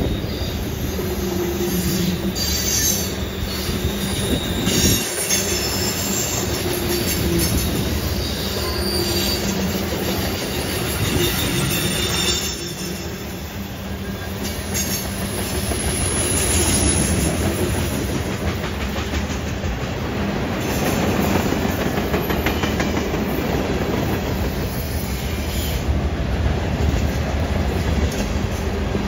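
Freight train's tank cars and covered hoppers rolling past on a curve: a steady rumble of steel wheels on the rails, with high-pitched wheel squeal coming and going as the wheels grind through the curve.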